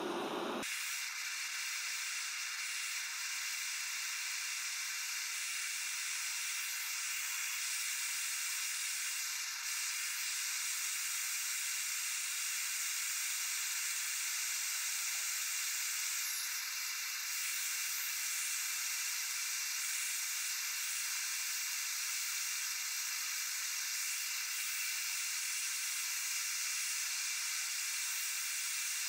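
Handheld gas torch flame hissing steadily while it heats a small steel part to a glow.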